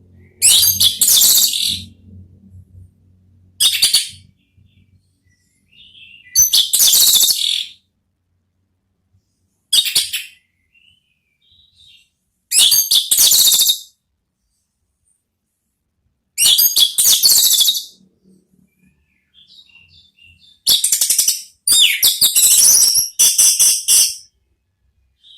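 Orange-headed thrush (anis merah) singing loud, clear 'ngeplong' song: short high-pitched phrases of about a second each, separated by pauses of two to three seconds, with a quicker run of several phrases near the end.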